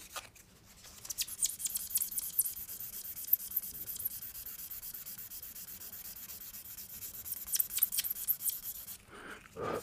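Small polishing pad rubbed quickly back and forth over a wax-filled repair in a floor plank, a dry hissy swish of short, quick strokes that starts about a second in and stops about nine seconds in. The rubbing brings the repair's sheen into line with the gloss of the surrounding floor.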